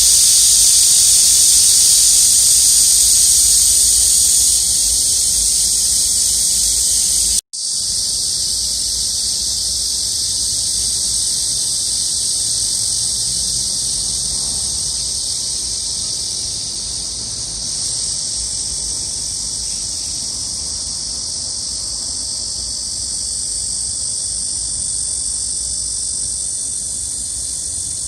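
Loud, steady, high-pitched chorus of insects calling, with a momentary dropout about seven and a half seconds in.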